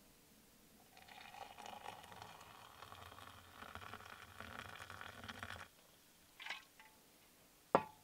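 Water poured into a ceramic mug for about four and a half seconds, then stopping, followed by a few short knocks, the sharpest near the end.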